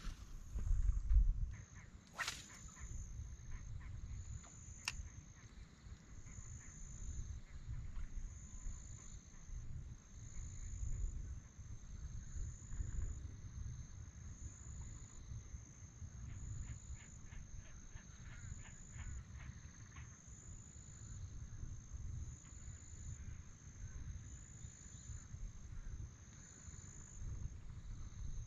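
Wind buffeting the microphone in an uneven low rumble, with a faint high chirp repeating about once a second and a few light clicks and ticks.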